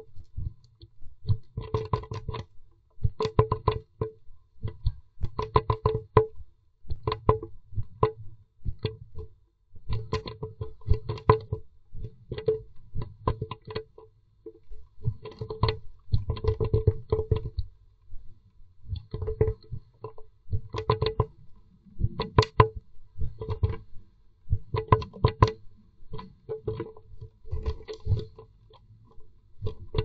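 Irregular bursts of rapid knocking and scratching with a hollow ring, typical of a blue tit moving about and pecking inside a wooden nest box.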